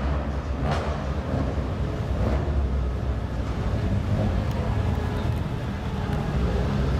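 Steady low rumble of a crowded indoor car-show hall, with faint voices.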